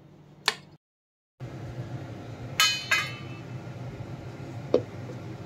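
Two sharp, ringing clinks of kitchenware against each other, less than half a second apart, over a steady low kitchen hum. The sound drops out completely for about half a second near the start, at an edit cut.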